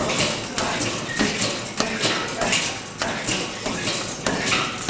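Knee strikes thudding into a heavy punching bag from a clinch, repeated about twice a second, with the fighter's hard breathing.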